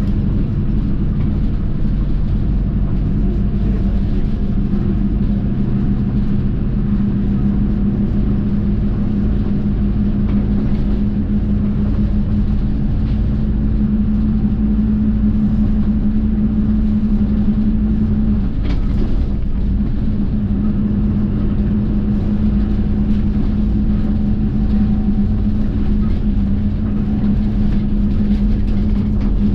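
Bus engine and road noise heard inside the cabin while driving: a steady low drone, with one brief click about two-thirds of the way through.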